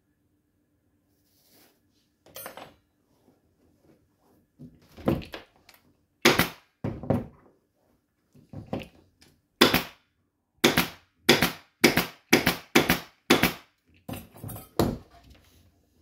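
A series of about fifteen sharp knocks and thuds, sparse at first and then coming about two a second in the second half, over a faint steady hum.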